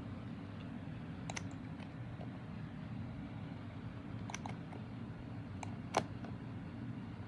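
Hurricane 20-inch box fan running with a steady low hum. A few light clicks come in over it, a sharper one about six seconds in.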